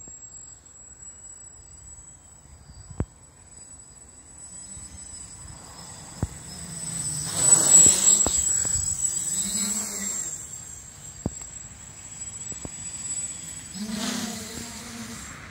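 Quadcopter with four Sunnysky 800 kV motors and 11x4.5 carbon propellers buzzing as it flies overhead, growing loudest about halfway through, fading, then rising again near the end. A few brief sharp clicks are heard along the way.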